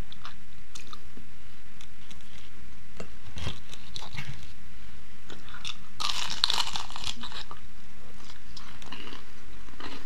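Close-up mouth eating sounds: small wet chewing clicks, then, about six seconds in, a crunchy bite into the crisp fried crust of a chicken empanada, followed by more chewing.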